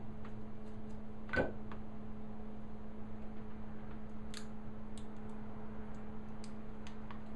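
A steady electrical hum under a few scattered light clicks and taps of a small hand tool on a wooden frame piece, the loudest a little over a second in.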